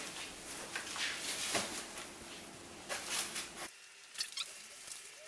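Pushchair parts being handled: soft rustling with a few light clicks and knocks, the background dropping away abruptly about two thirds of the way through.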